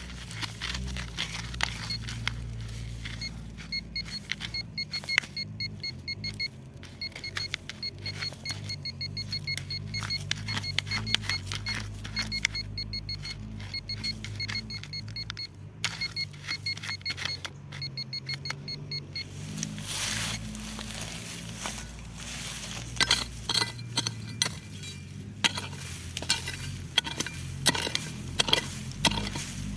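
Metal detecting: clinks and scrapes of digging in stony ground, with a detector's faint high pulsing tone for about fifteen seconds and a steady low hum underneath. The clattering grows louder near the end.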